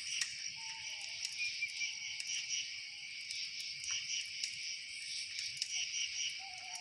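Dense chorus of crickets and other night insects, a steady pulsing trill, with a few faint sharp ticks and a faint drawn-out whistle-like call about half a second in and again near the end.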